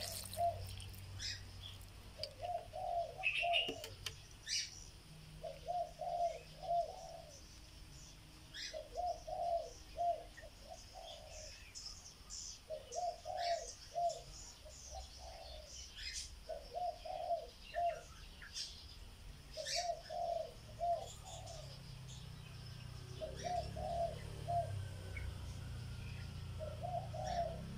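A dove cooing the same short multi-note phrase over and over, about every three and a half seconds, with small birds chirping now and then.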